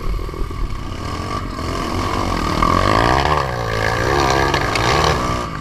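Dirt bike engine running under throttle, its revs rising and falling as it climbs a muddy trail, heard from a camera mounted on the bike.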